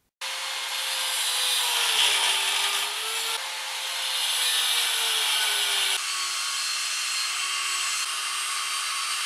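An angle grinder cutting through a metal power steering pump mounting bracket held in a vise: a continuous hissing grind of the disc on metal over the motor's whine, which sags lower in pitch as the disc bites.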